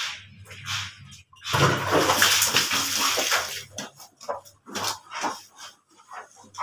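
Water splashing onto wet clothes on a concrete floor during hand laundry, a loud rush lasting about two seconds, beginning a second and a half in. It is followed by a string of short wet swishes as the soaked cloth is worked by hand.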